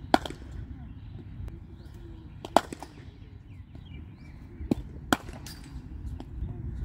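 Cricket ball cracking off a bat and smacking onto a concrete practice pitch: a few sharp cracks, two of them close together near the end. Birds chirp faintly over a low rumble.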